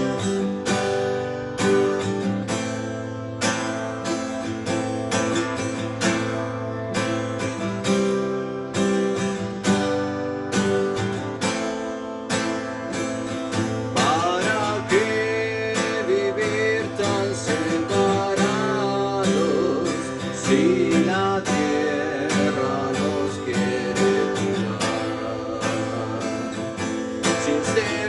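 Acoustic guitar strumming chords in an instrumental break of the song; about halfway through, a wavering melody line comes in over the strumming.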